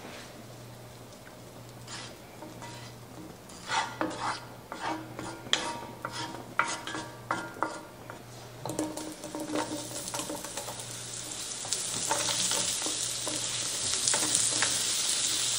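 A wooden spatula scrapes and taps against a cast-iron skillet as butter melts in it. From about twelve seconds in, a sizzle builds as zucchini slices are laid into the hot butter. A steady low hum runs underneath.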